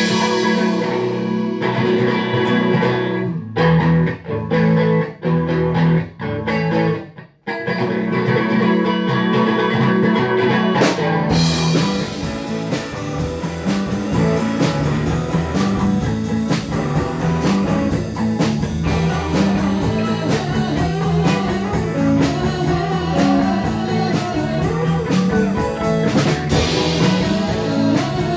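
Rock band playing, with guitar to the fore over bass and drums. The music stops and starts in several short breaks in the first seven or so seconds. From about eleven seconds in, the band plays on with a quick, steady high ticking beat from the drums.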